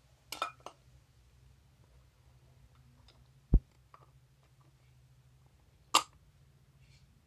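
Exhaust fan parts knocked and clicked together while its back cover is fitted on: a quick cluster of clicks near the start, a low thud midway and a sharp click near the end.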